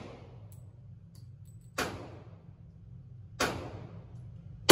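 Handgun shots on an indoor firing range: two shots about a second and a half apart, each ringing off the range walls, and a third right at the end.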